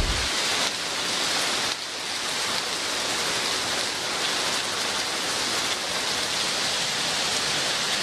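Heavy rain falling, a steady even hiss.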